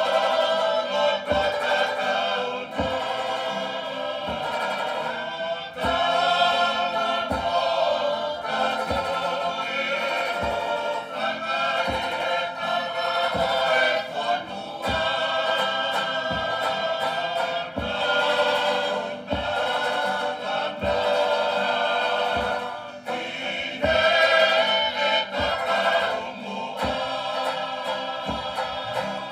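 Tongan tau'olunga song from a group of singers in harmony, accompanied by a string band of banjo and guitars, with a steady low beat.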